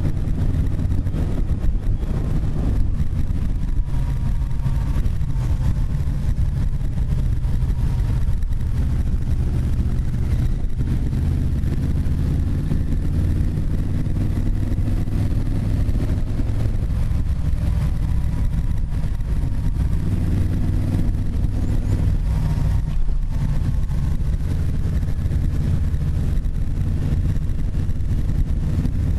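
Onboard sound of a motorcycle being ridden: steady wind buffeting on the microphone over the engine, whose pitch rises and falls gently with the throttle.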